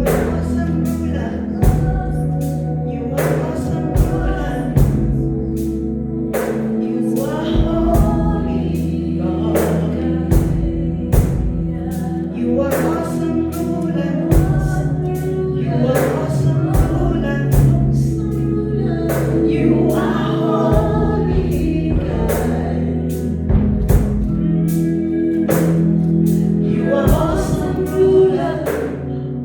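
Live gospel worship music: a choir singing over a sustained bass line and a steady drum beat.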